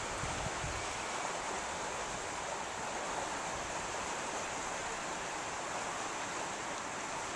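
Cherry Creek running: a steady, even hiss of flowing water.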